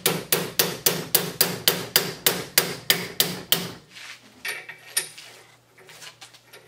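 A small hammer striking quickly and evenly, about three to four blows a second, folding the teeth of a lock washer over on the pinion nut of an early Ford banjo rear axle so the nut cannot turn. The hammering stops a little under four seconds in, followed by a few lighter metal clinks.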